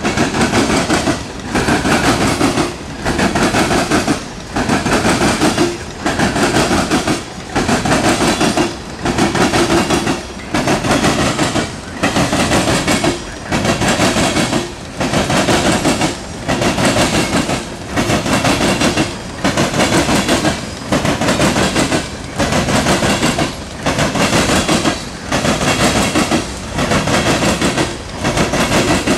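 Steel wheels of loaded coal hopper cars clattering over a rail crossing diamond as a freight train passes. A loud burst of clatter comes with each car, about every second and a quarter.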